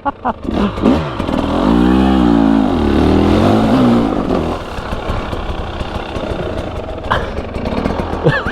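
KTM 300 EXC two-stroke dirt bike engine revving up and down for a few seconds, then running under way over rough ground with a steady rush of wind and noise and frequent knocks and clatter.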